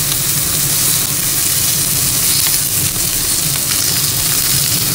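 Chicken pieces sizzling steadily in hot oil in a frying pan, over the steady low hum of a range hood exhaust fan.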